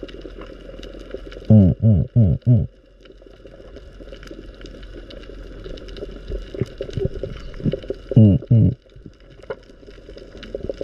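Underwater ambience heard through a GoPro housing: a steady low rush with faint crackling, broken by muffled humming 'mm-mm' sounds in short bursts that rise and fall in pitch, four of them about a second and a half in and two more near the end.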